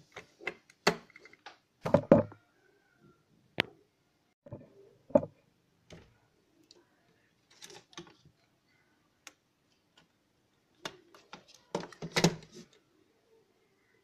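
Handling noise from a serial adapter, cables and a router's plastic case being moved about on a wooden desk: scattered clicks, taps and knocks, with louder thumps about two and five seconds in and a cluster of knocks near the end.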